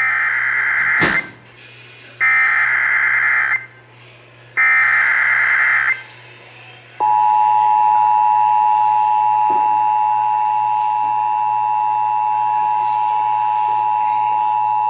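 Emergency Alert System tones over AM radio: three roughly one-second bursts of SAME header data, a second apart, then from about seven seconds in the two-tone attention signal held steady. A sharp click about a second in, and a low hum throughout.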